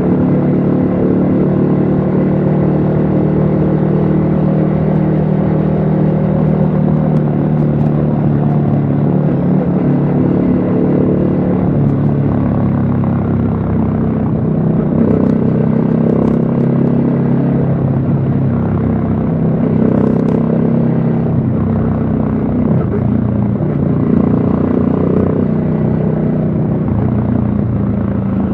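Yamaha XSR155's single-cylinder engine running at a steady riding speed, heard from a helmet-mounted camera. Its pitch shifts slightly a couple of times as the throttle changes.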